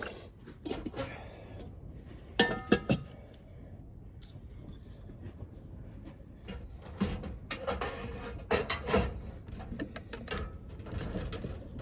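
Metal camp cookware and stove parts knocking and clinking as they are handled. A louder clank with a short ring comes about two and a half seconds in, and a run of clinks follows about seven seconds in, over a steady low rumble.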